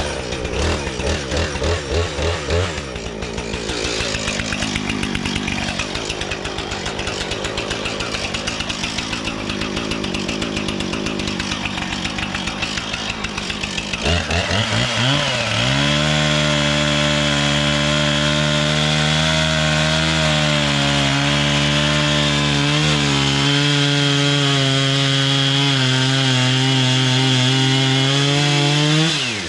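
Frontier OS23 bandsaw mill's gas engine running under load while the band blade cuts through a log of hard wood, its pitch wavering. About halfway through it revs up and holds a high, steady note with a thin whine above it, then cuts off suddenly at the very end.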